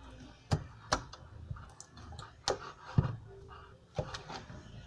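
Slime being worked by hand: irregular sticky clicks and soft knocks, about five sharp ones, the loudest about three seconds in.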